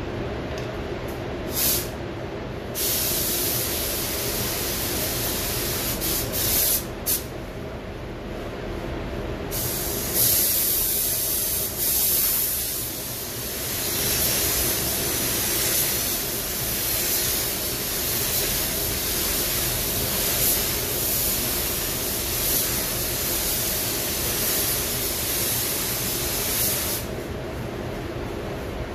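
Gravity-feed paint spray gun hissing as the painter lays a coat on a car's body panels: short bursts early on, then held almost continuously for most of the rest and stopping a couple of seconds before the end. Under it runs the steady drone of the spray booth's air handling.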